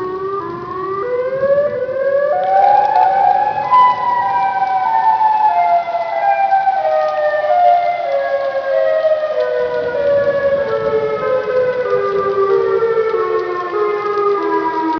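Civil defence siren wailing: its pitch climbs over the first two to three seconds, then falls slowly in small steps.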